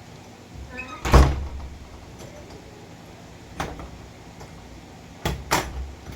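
A door and its newly fitted knob and latch being worked: a loud knock with a low thud about a second in, a single click a little past halfway, and two quick clicks near the end.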